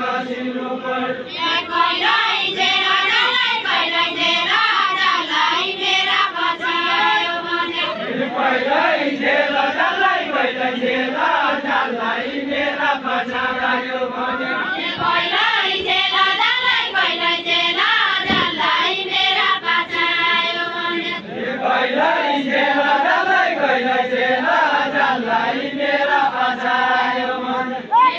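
A group of voices singing a Deuda folk song together, the melody rising and falling in a repeating phrase, with no instruments heard.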